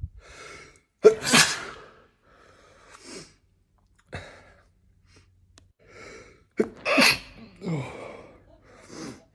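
A person sneezing twice, about a second in and again about seven seconds in, with sharp breaths and sniffs around each sneeze.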